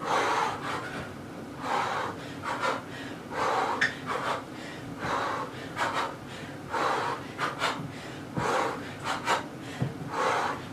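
A woman's heavy exercise breathing: short, forceful breaths blown out about once a second, in time with her punches during an uppercut-and-duck drill.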